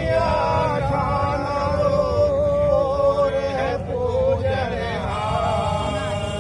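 A man's voice chanting Hindu wedding mantras in long, drawn-out held tones, with a short break about four seconds in.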